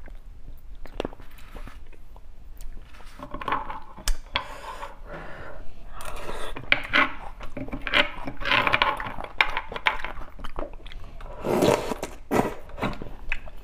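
Close-miked eating of roasted beef bone marrow: a metal spoon scraping marrow out of the split bone, with wet chewing and sucking of the soft marrow, sucking at the bone end near the end.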